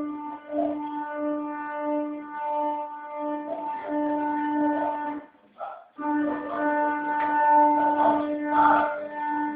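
Stepper motors of a CNC foam-cutting pantograph running, a steady whine held at one pitch. It cuts out briefly about five seconds in and resumes at the same pitch, with irregular rustling and knocks over it.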